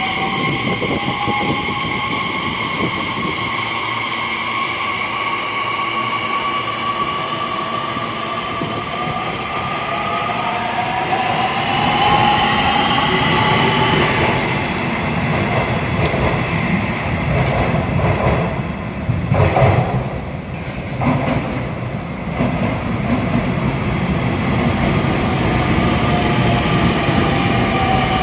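Nishitetsu Tenjin Ōmuta Line electric train moving at the platform: a motor whine made of several tones that slowly glide up and down in pitch, over the rumble of the wheels, with a short run of knocks about two-thirds of the way through.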